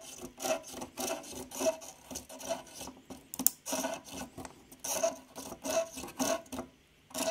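Soldering iron tip rubbed back and forth over molten solder on a tinned copper wire bridging a through-hole connector's pins, a soft rhythmic scraping of about two to three strokes a second. The iron is heating all the joints at once to melt them and free the connector.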